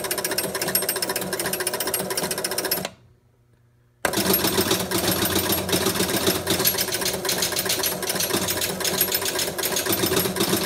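Electromechanical pinball machine running its game-start reset cycle: the motor and relays clatter rapidly, stop about three seconds in, and start again a second later. It was set off by pushing in the AX relay by hand, because that relay is not pulling in on its own.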